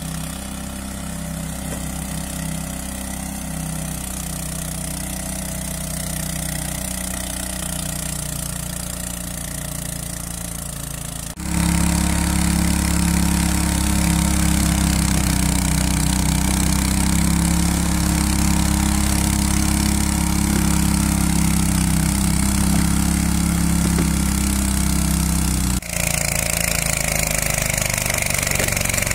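Small petrol engines of radio-controlled tracked mowers running steadily. The sound jumps louder about a third of the way in and changes character again near the end.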